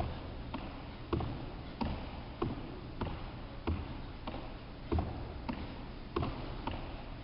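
Athletic shoes landing one after another on a wooden sports-hall floor during side-to-side lateral bounds: a sharp thud about every 0.6 s, each a single-foot landing and push-off. A steady low hum runs underneath.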